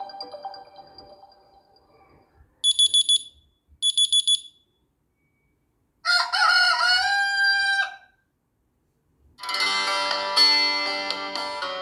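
Honor 9 lite ringtones played one after another through the phone's speaker: the fading end of a mallet tune, two short bursts of rapid high electronic beeps, a recorded rooster crowing, then a guitar tune starting near the end.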